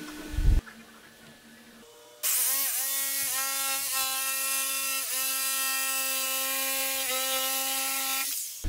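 Corded jigsaw running and cutting across a wooden board, its motor pitch dipping briefly several times as the blade loads up, then switching off near the end. About half a second in there is a short thump.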